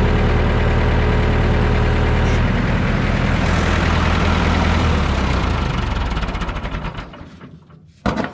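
1969 Massey Ferguson 3165 tractor engine running steadily, then shut off: its firing slows and dies away over a couple of seconds. A short sharp knock follows near the end.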